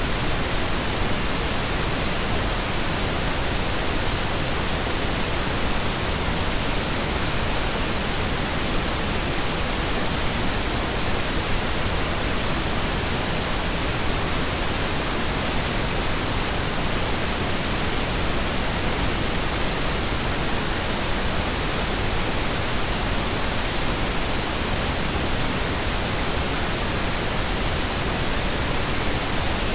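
Pink noise: steady, even hiss across the whole range, unchanging throughout.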